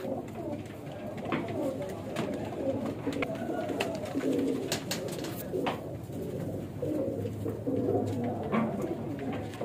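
Indian zakh pigeons cooing continuously, with a few sharp clicks scattered through.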